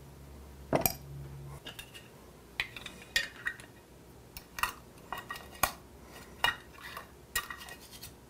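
Clinks and taps of a metal spoon, glass canning jars and a metal canning lid and band being handled on a kitchen counter. About a dozen sharp clinks, some briefly ringing, come spread over the seconds, the loudest about a second in.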